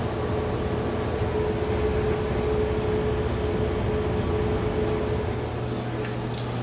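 Cutera xeo laser system powered on and running: a steady machine hum with a constant mid-pitched tone over a low drone and an even hiss.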